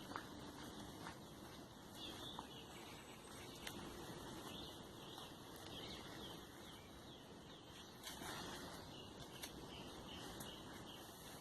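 Faint forest birdsong: a bird repeats a short high chirp about twice a second, mostly in the middle stretch, over a quiet outdoor background with a few faint clicks.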